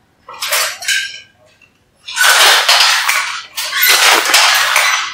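Wooden handloom clattering and rattling as it is worked: two short bursts in the first second and a half, then two longer stretches of clatter.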